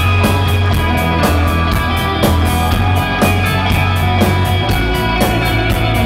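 Live instrumental rock band playing loudly: electric guitar and bass guitar over drums, with cymbals struck on a steady beat and a heavy, sustained bass line.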